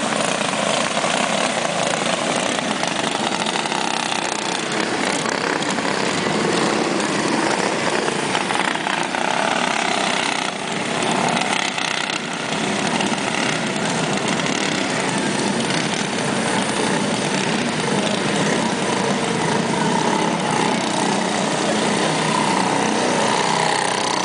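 Several racing go-kart engines running together as the karts circle the track, a continuous buzz whose pitch wavers as they pass.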